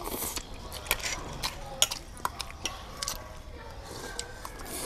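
Chopsticks clicking against small stainless-steel bowls in a scattered series of sharp clicks, with noodles being slurped.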